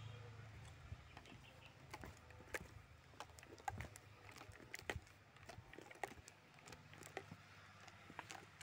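Near silence broken by faint, irregular clicks and light taps, a few each second, with a low hum fading out in the first couple of seconds.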